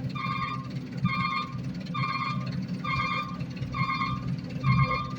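Back-up alarm on heavy machinery beeping about once a second, six times, over the low running of a diesel engine.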